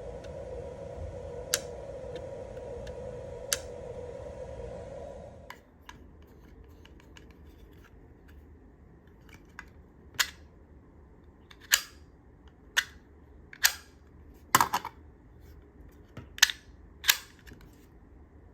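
Sharp separate clicks from small metal parts, most likely the aluminium sliding wallet snapping open and shut on its steel lever and magnets. A steady hum stops about five seconds in, and after that the clicks come one at a time, about eight of them in the second half.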